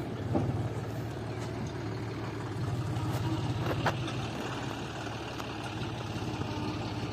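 John Deere tractor's diesel engine running steadily under load as it pulls a trailer heaped with stones over rough ground. A single sharp knock comes about four seconds in.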